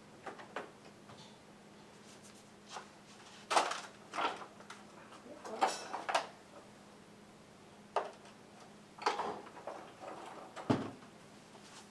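Irregular handling noises: about ten short knocks and rustles of objects being moved and shifted about, spread unevenly through the stretch.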